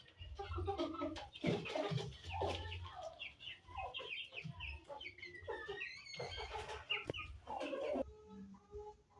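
Chickens clucking: many short calls overlapping, until the sound changes abruptly near the end.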